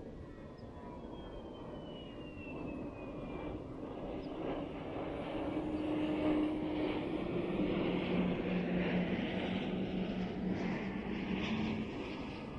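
Micro FPV quadcopter's Airblade 1404 brushless motors and propellers whirring in flight, with a high whine falling in pitch early on. It grows louder toward the middle and eases off a little near the end.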